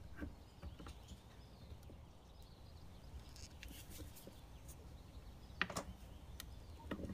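A screwdriver working a rusted screw out of an antique hand vise: faint metal scrapes and small clicks, with a sharper couple of clicks about five and a half seconds in.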